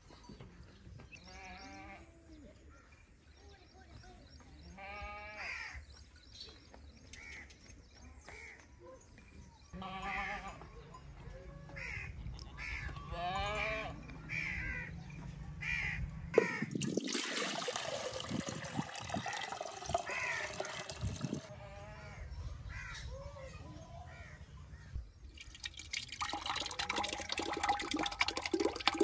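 Sheep and goats bleating again and again, short wavering calls. A stretch of rushing noise comes in the middle. Near the end, metal utensils clatter and curd is poured from a metal pan into a clay churning pot.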